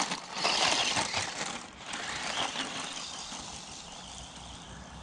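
DEERC 9300 1:18-scale RC truck driving over rough ground, its tyres crunching and its chassis rattling. The sound is loudest in the first two seconds, then settles to a steadier, quieter running noise.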